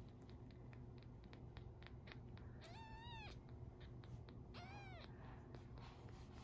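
A baby kitten mewing twice, two short high mews that rise and fall, about a second and a half apart, after a run of faint soft clicks.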